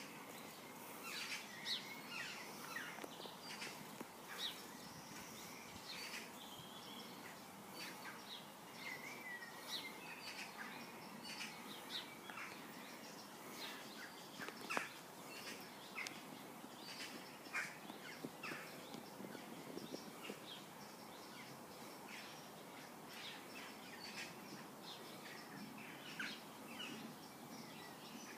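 Many short, high chirping calls scattered throughout over a steady outdoor background hiss, with a few sharp clicks, the loudest about fifteen seconds in.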